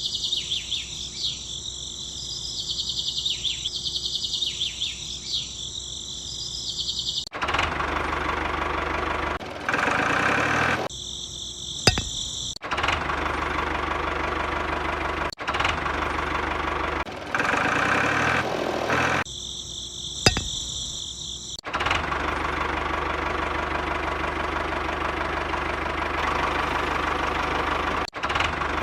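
Small motor-driven tools running in short separate clips: first a high, warbling whine, then a rougher, steadier buzzing noise that starts and stops abruptly several times.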